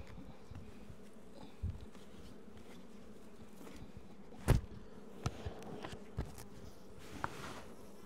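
Honeybees buzzing steadily around open beehives, with a few sharp knocks, the loudest about halfway through.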